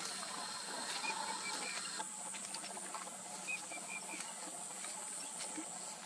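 Grassland ambience: a steady high hiss, with a distant bird giving a short run of quick, high notes about a second in and again at about three and a half seconds.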